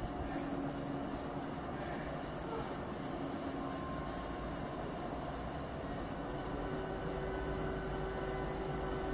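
A cricket chirping in a steady rhythm, about three to four high chirps a second, over a low background rumble.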